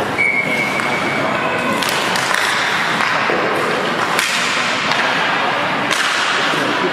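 Ice hockey play: a referee's whistle held for about a second and a half near the start, then several sharp cracks of stick and puck against the boards, a second or two apart, over steady rink noise.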